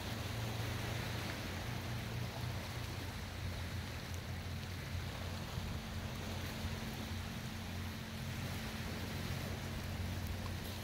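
Shallow sea water lapping gently against a concrete seawall, a steady wash of water noise, with a low steady hum underneath.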